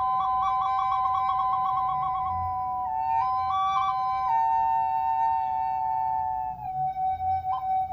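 Bamboo double flute played solo. One pipe holds a steady drone while the other plays a melody above it with quick trills and ornaments. Near the end the melody settles onto the drone's note and the playing turns to short repeated pulses.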